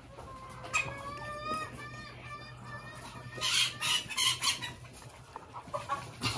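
Chickens in a coop: a rooster crows one long call about a second in, then there are a few loud, harsh bursts from the flock around the middle.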